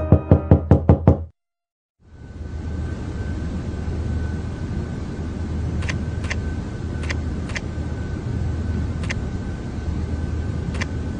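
A rapid run of about seven sharp knocks, then a cut to silence. After that, a steady hum of a quiet room with a thin high whine, broken by a handful of single clicks at the computer.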